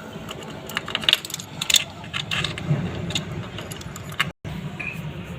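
Metal clinks and rattles of a moped timing chain being handled and fitted onto the engine's sprocket: a run of sharp separate clicks, busiest in the first half. The sound breaks off for an instant near the end.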